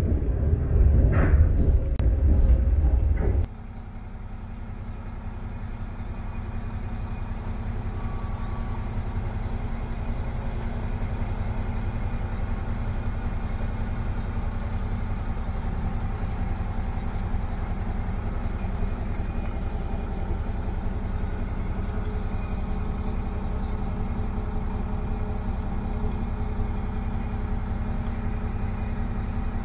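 Cabin sound inside a class 814 Regionova diesel railcar. It opens with a loud low rumble and rattling, then drops suddenly about three and a half seconds in to a quieter, steady drone of the Tedom diesel engine with a low hum.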